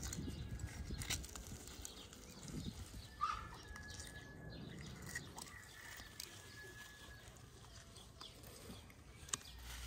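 Faint clicks and scrapes of metal tongs and a knife working through a whole grilled sturgeon on a wooden board. A bird chirps briefly about three seconds in, and a thin whistle-like call follows.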